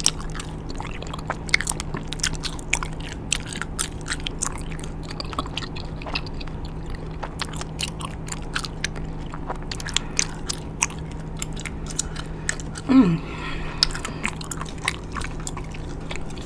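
Close-up wet chewing of a wad of bubble gum: a continuous string of sharp mouth clicks and smacks. About thirteen seconds in, a brief low vocal sound, falling in pitch, is the loudest moment.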